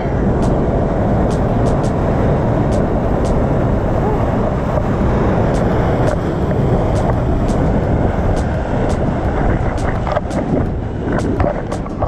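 A waterfall's water rushing, loud and steady, with scattered sharp clicks.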